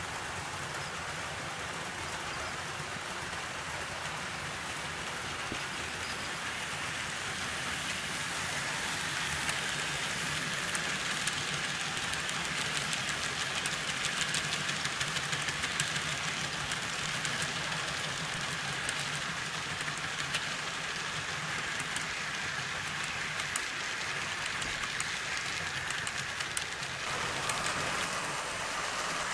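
A Bachmann model freight train running along the layout track: a steady hiss and hum of the model's wheels and motor. Rapid fine clicking comes in as the intermodal container wagons pass. Near the end the sound changes as a second model locomotive runs in.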